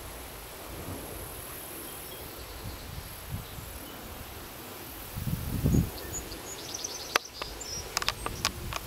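Outdoor ambience with a steady high insect drone. A low rumble comes about five seconds in, a quick run of high chirps follows near seven seconds, and several sharp clicks come near the end.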